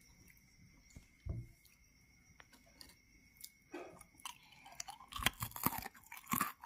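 Crisp nippattu (deep-fried rice crackers) crunching, with sharp crackly snaps that start about four seconds in and get louder, after a quiet start with a few faint clicks of the crackers being handled. The crackle is the sign of a well-fried, crisp nippattu.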